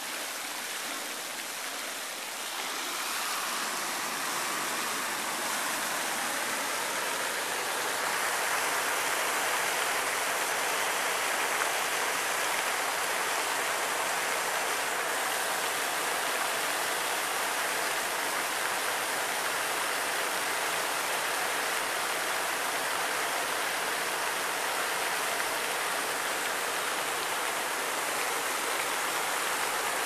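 Pool waterfall ring: a curtain of many thin streams of water pouring down into the pool, a steady splashing hiss. It grows louder over the first several seconds, then holds steady.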